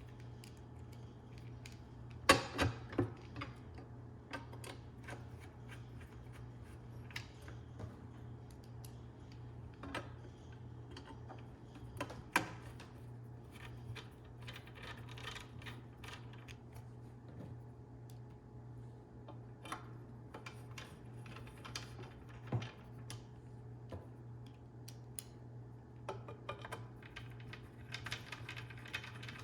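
Small irregular metal clicks and taps of screws being placed and turned in on a chop saw's blade guard, with a few louder knocks, the loudest a cluster about two seconds in.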